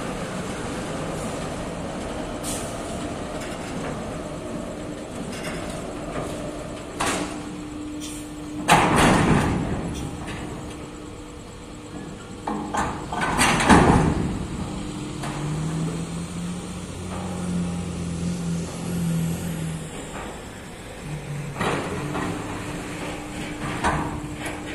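Ship-to-shore gantry crane working a container ship, its spreader being lowered toward the container stack. Under a steady machinery hum come scattered metal clanks and two loud noisy surges, about nine and fourteen seconds in, each lasting a second or so. A lower drone follows for a few seconds.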